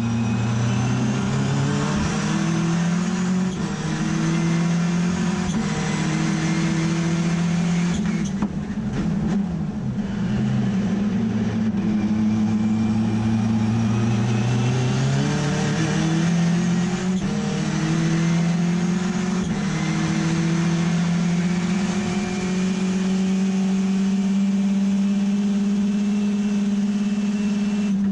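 Mazda RX3 race car's rotary engine at full race pace, heard from inside the cabin. The pitch climbs and drops back again and again as the car accelerates and shifts gear. A lift and downshifts come about a third of the way in, then the engine pulls hard again onto the straight.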